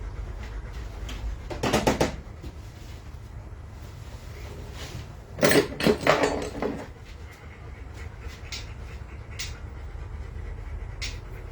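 Two short bursts of clattering knocks, about two seconds in and again around five to seven seconds in, with scattered single clicks between them over a steady low hum.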